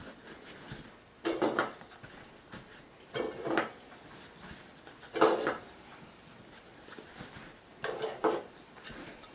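Metal pistol magazines being handled and set into a gun case: short clusters of clinks and knocks four times, the loudest about five seconds in.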